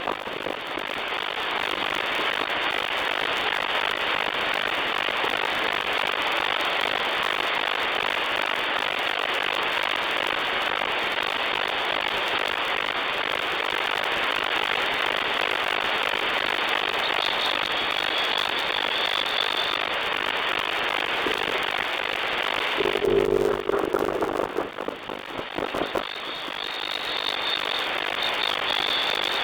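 Static of an HF amateur band through a software-defined radio receiver: a steady hiss of band noise, cut off above about 4 kHz by the receiver's single-sideband filter, with no station talking. About 23 seconds in, a brief buzzing burst breaks through.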